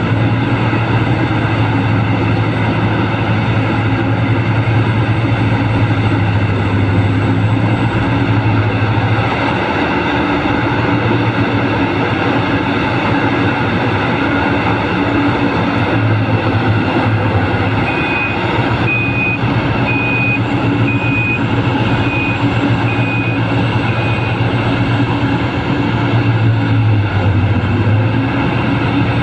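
Heavy mining machinery's diesel engines running steadily under load, the drone easing and building a few times. About two-thirds of the way in, a reversing alarm beeps about seven times, once a second.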